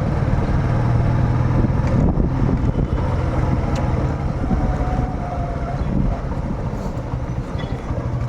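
Motorcycle engine running with a steady low drone, its rapid firing pulses heard under road noise.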